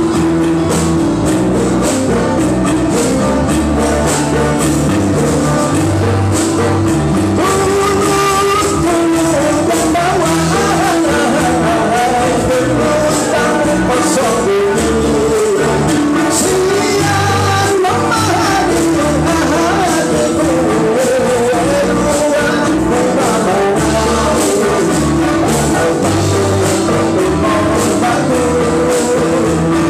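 Live band playing a song with drum kit, electric guitars and bass under a singer's voice, loud and continuous.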